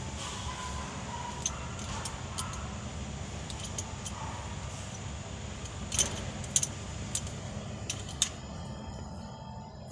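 Metal hand tools clinking and tapping against a diesel engine's cylinder head as its head bolts are undone with a long T-handle wrench: scattered sharp clinks, several close together about six to eight seconds in, over a steady low hum.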